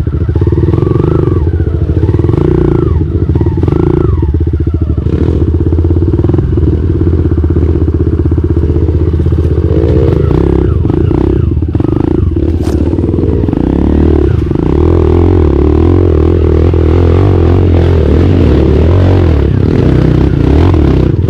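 Open-piped dirt bike engine with a big 28 carb, running steadily at low revs while the bike is ridden slowly over a rutted trail. A few knocks and rattles come from the bike over the bumps about halfway through.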